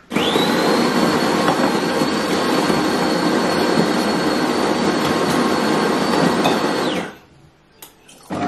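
Automatic bean-to-cup coffee machine running its built-in grinder: a steady whirring with a high whine that rises as the motor spins up and falls away as it stops after about seven seconds. Just before the end a lower, steady hum starts up.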